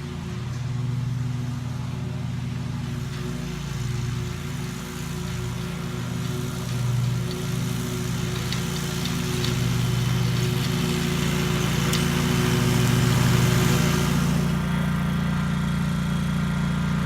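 An engine running steadily, its pitch and level shifting a little now and then.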